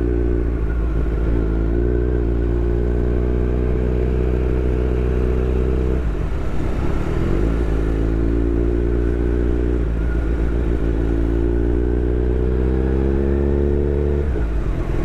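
Kawasaki Z900's inline-four engine with an SC-Project full-system exhaust, heard from the saddle while riding. The engine note climbs slowly and falls back three times, about six, ten and fourteen seconds in, as the throttle eases or the gears change.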